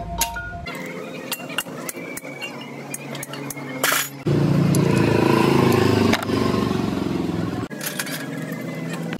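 Steel parts clinking as a crown gear is seated on a truck differential carrier and its bolts are handled. A loud motor starts running about four seconds in and stops abruptly some three and a half seconds later, the loudest sound here.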